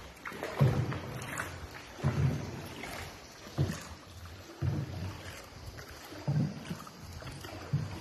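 Paddle strokes of a small outrigger boat moving through water: a dull thud with each stroke, about every second and a half.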